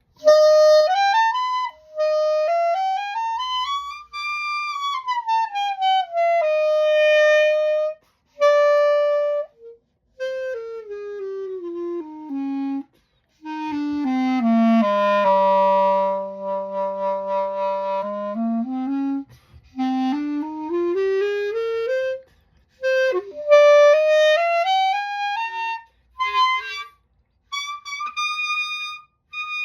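E-flat clarinet played solo: quick runs of notes up and down, with a long low note held about halfway through.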